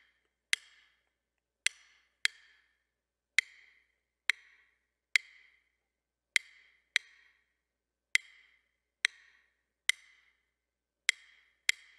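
Two wooden drumsticks clicked together, playing the 3-2 son clave at a steady moderate tempo. The pattern repeats every two bars as five sharp clicks with uneven spacing, and about thirteen clicks are heard.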